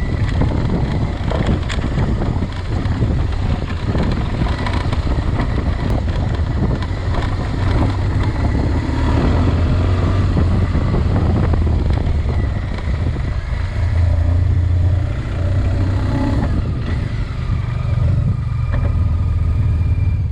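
A vehicle's engine running steadily at a low pitch while under way, with many small knocks and rattles over it.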